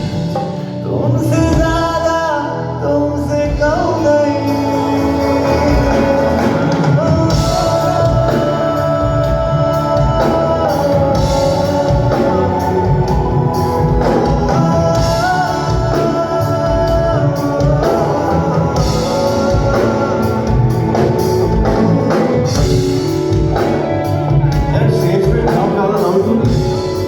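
Loud music with a singing voice over a band, with drums and a steady beat.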